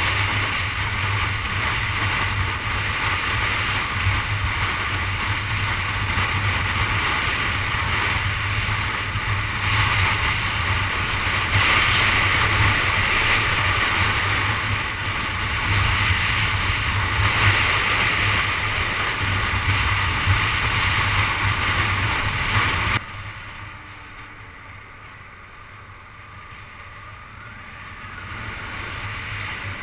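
Steady road and wind noise of a car travelling at highway speed. About 23 seconds in it drops suddenly to a much quieter hum, which then slowly grows louder again.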